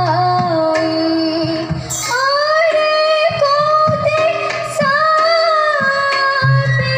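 A girl singing a borgeet, the Assamese devotional song, in long held notes that glide between pitches, accompanied by a hand-played barrel drum.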